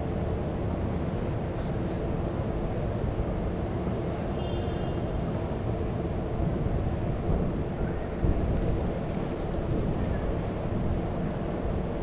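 Wind buffeting the microphone: a steady low rumble, with a brief high tone about four seconds in.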